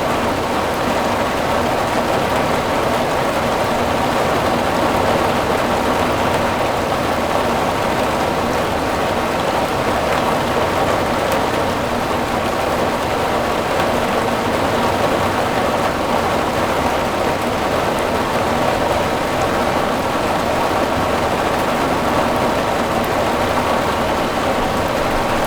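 Steady rain drumming on a sheet-metal roof, an even dense patter with no let-up.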